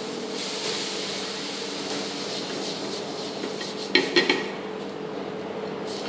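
Water sprinkled on a hot non-stick dosa tawa sizzling steadily, fading near the end. About four seconds in come a few quick clinks and knocks as the pan is wiped with a cloth.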